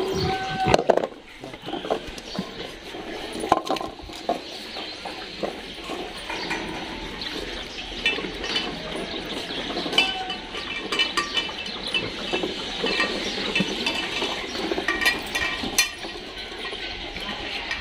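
Dogs eating from stainless steel bowls: chewing and licking, with many small clinks and scrapes of muzzles and food against the metal bowls.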